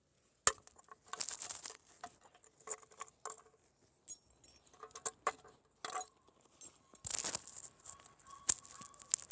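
A SCAR-L electric BB gun firing single shots, heard as sharp cracks about half a second in and again near the end, between scattered clicks and rustling from handling.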